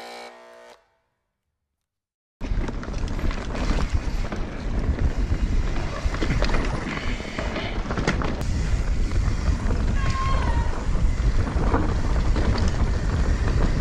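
Music ends, then a brief silence; from about two seconds in, wind buffets the microphone over the rumble of a mountain bike's tyres on a dirt trail, with occasional sharp clicks and rattles from the bike.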